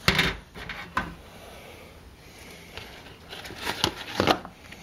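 Clear plastic propagation dome lid being handled and set down over a seedling tray, giving a few short light plastic knocks and rubs. The loudest of them come just before the end as the lid settles into place.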